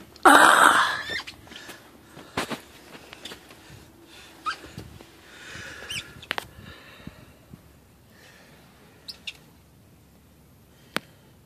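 Handling noise from a handheld camera as someone shifts about under a vehicle: a loud rush of breath or scrape lasting about a second at the start, then scattered small knocks and clicks, a few short high chirps, and one sharp click near the end.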